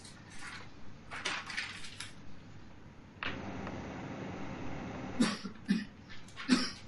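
Lecture-room noises: a few short rustles, a steady hiss that starts suddenly about three seconds in, and several sharp knocks near the end.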